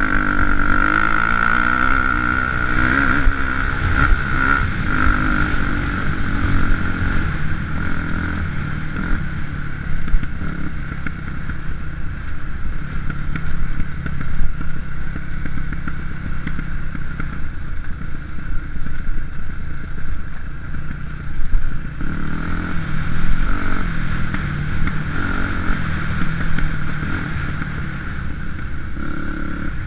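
KTM enduro motorcycle engine running under way, its revs rising and falling over and over, steadier and lower through the middle stretch.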